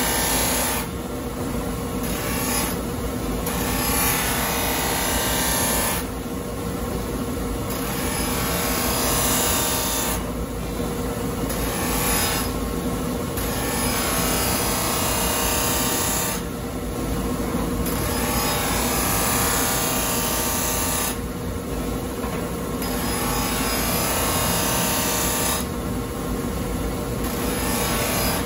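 Steel deba knife blade being ground on a large bench grinder's wheel: a dense grinding hiss over the grinder's steady motor hum. The hiss breaks off for a second or two several times as the blade is lifted and set back on the wheel, while the hum runs on.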